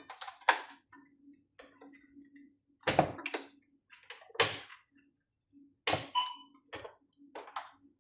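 Irregular clicks, knocks and light rattles of plastic and metal parts as a patient monitor's casing and circuit board are handled during disassembly, with the loudest knocks about 3, 4.5 and 6 seconds in.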